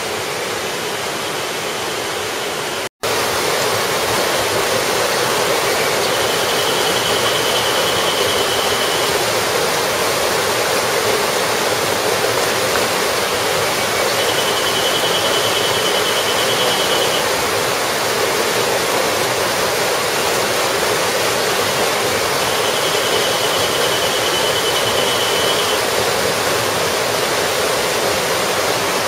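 Steady rush of the small Fukiryu Falls cascades, water spilling over and striking rocks in a river gorge. The sound cuts out briefly about three seconds in and resumes a little louder. A high pulsing trill sounds three times, each about three seconds long.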